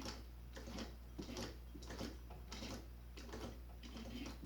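Irregular small clicks and rustles of hands handling thread and parts at an industrial sewing machine while it is rethreaded, over a steady low hum.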